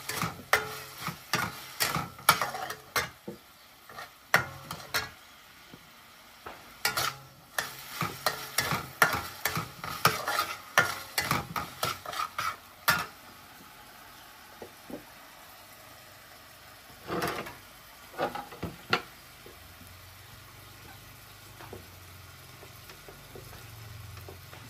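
Metal spatula scraping and clanking against an aluminium wok as pieces of meat are stirred and fry with a sizzle. The scraping is rapid and frequent for roughly the first half, then gives way to the quieter sizzle with a few scattered knocks.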